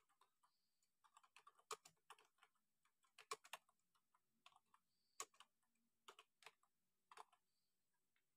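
Computer keyboard being typed on: a faint, irregular run of keystroke clicks.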